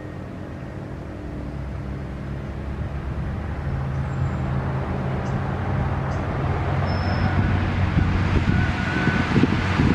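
A road vehicle approaching, its engine and tyre noise growing steadily louder.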